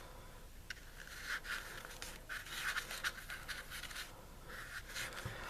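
Hands handling lighter packaging: faint scratching and rustling with a few light clicks.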